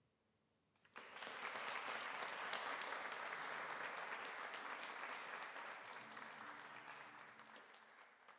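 Small audience applauding after a live piece of music. The clapping breaks out abruptly about a second in, holds steady, then slowly thins out and fades toward the end.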